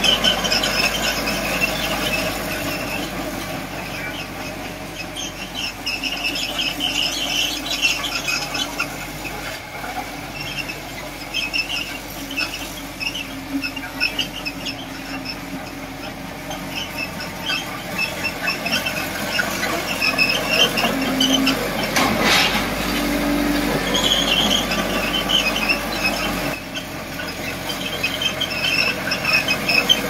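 Bulldozer's steel tracks squealing in many short, irregular squeaks as it moves, over the steady running of its diesel engine.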